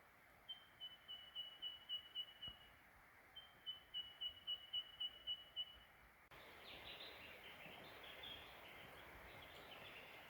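A bird calls faintly in two runs of evenly repeated high pips, about four a second, each run lasting a couple of seconds. About six seconds in, the sound cuts to a steady outdoor hiss with fainter, busier bird chirping.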